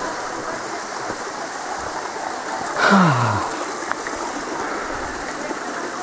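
Steady rush of a stream or waterfall. About three seconds in, a short voice sound falling in pitch stands out as the loudest moment.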